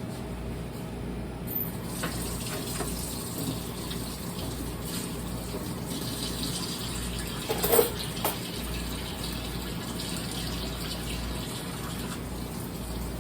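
Water running from a tap into a sink, with a sharp clunk a little over halfway through and a lighter one just after.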